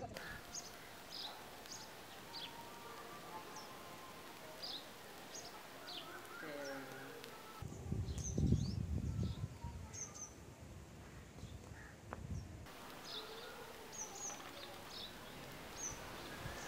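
Small birds chirping repeatedly in the background, short high calls scattered throughout. About halfway through, a low rumble of wind on the microphone comes in for about five seconds.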